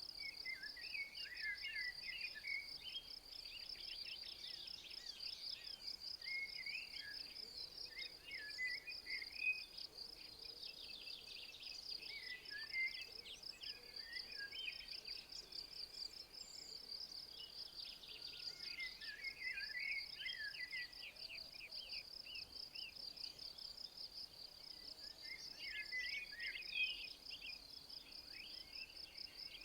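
Insects trilling steadily at a high pitch in a fast, even pulse, while a songbird sings short, twittering phrases every few seconds.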